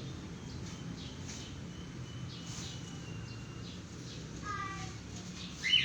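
Small bird chirping over a low steady hum: faint scattered chirps, a short run of falling notes about four and a half seconds in, and one loud sharp rising chirp near the end.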